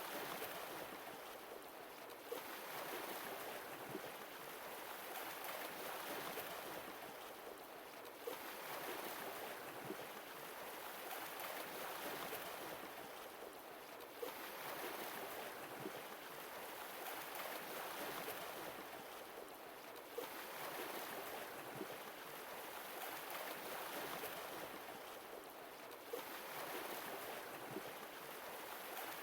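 Sea waves washing onto the shore and drawing back in a slow, even rhythm: a wave comes in about every six seconds, each opening with a short sharp splash before the wash fades.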